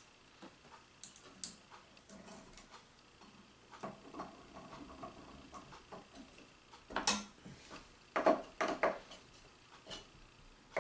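Scattered small clicks and knocks of hands handling printer-kit parts and tools, a few louder knocks about two-thirds of the way through.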